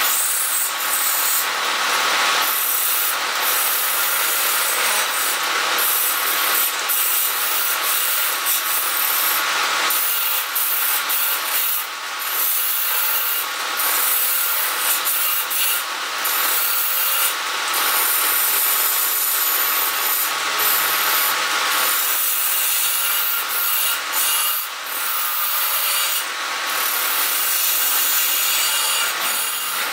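Hand-held turning chisel cutting a spinning wooden spindle on a wood lathe: a steady, rasping hiss of the blade peeling off shavings. It drops away briefly a couple of times, about 12 and 25 seconds in.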